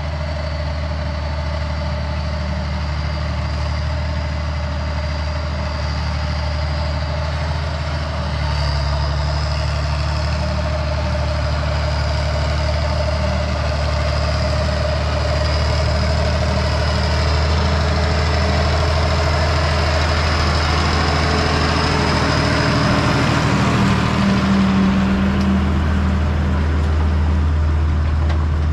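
Farm tractor engine running steadily as the tractor drives up towing a wooden chopper-box wagon, growing gradually louder as it approaches and loudest about 24 seconds in.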